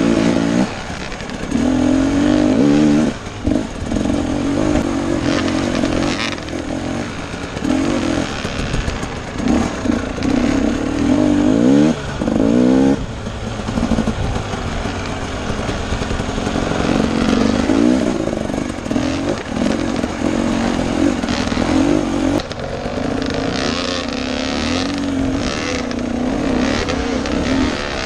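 Husqvarna TE250 dirt bike engine revving up and down under changing throttle while being ridden, its pitch rising and falling again and again, with brief drops where the throttle closes.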